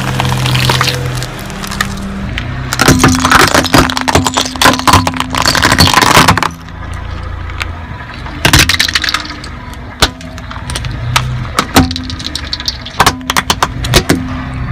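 A car tyre rolls slowly over a run of objects and crushes them one after another. It starts with squashing bell peppers, then a long stretch of dense crackling and snapping, then hard plastic cracking from about eight and a half seconds, as a Rubik's cube is crushed, and more sharp snaps near the end. A steady low hum runs underneath.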